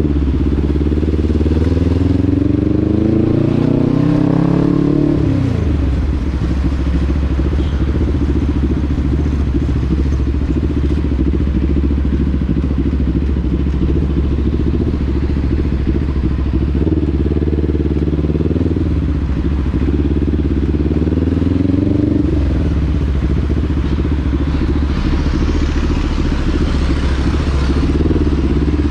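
Motorcycle engine running on the move. The engine pitch rises as it accelerates and then drops back, once early on and twice more in the second half.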